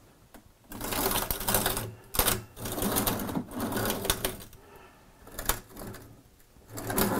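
Rumbling rattle with several sharp clicks as a QS-5100 benchtop reflow oven is turned on a wooden turntable and its front drawer is slid open and back on ball-bearing drawer slides, whose bearings the owner finds rough and dusty.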